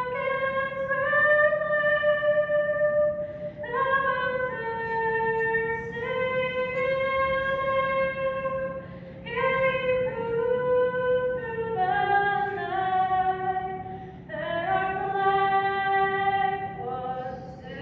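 A single woman singing solo without accompaniment, in slow, long-held notes with short breaths between phrases.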